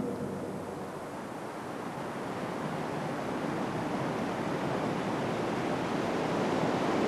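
Steady rushing noise of surf and wind along the beachfront, dipping slightly about a second in and then slowly growing louder.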